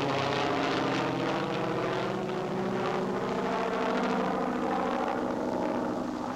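A PBY Catalina's twin radial engines running as it taxis out for takeoff as a glider tow plane: a steady propeller drone.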